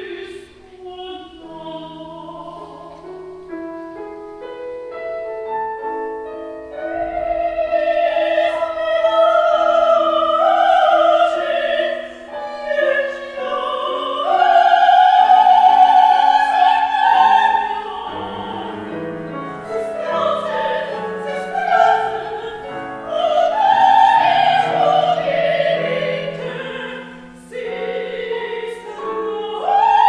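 Operatic soprano singing an aria with wide vibrato over piano accompaniment. The voice swells loudest around the middle and again near the end.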